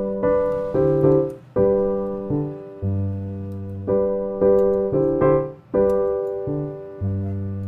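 Background piano music: a slow melody of struck notes and chords, each fading before the next.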